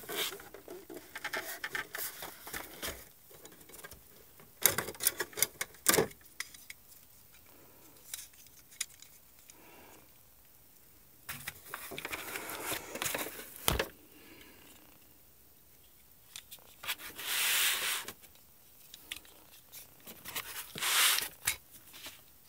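Xbox Series X parts handled by hand: plastic rubbing and scraping, with scattered clicks and a few sharp knocks as the pieces are moved about.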